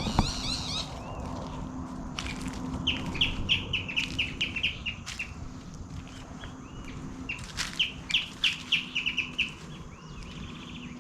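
Wild birds calling: two runs of quick, high repeated chirps, about five a second, a few seconds in and again near the end, with softer short calls between.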